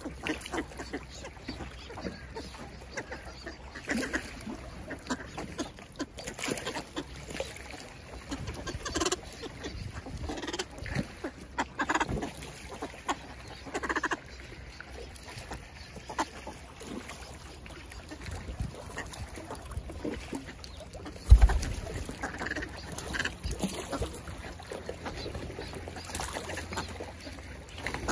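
A flock of ducks, northern pintails and common pochards, making scattered short calls, with one loud low thump about three-quarters of the way through.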